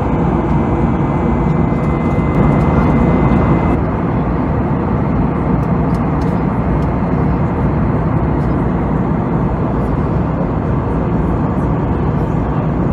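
Steady cabin noise of an Airbus A320neo in flight, from its Pratt & Whitney PW1100G geared turbofans and the rush of air past the fuselage, heard inside the cabin. A faint high whine sits on top and stops about four seconds in.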